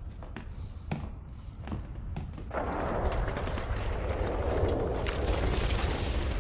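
War-film battle soundtrack: a low rumble with scattered knocks, then about two and a half seconds in a louder, dense din of crackling gunfire and shelling.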